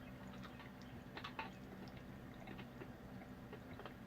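Quiet room with a steady low hum and a few faint, soft clicks a little over a second in.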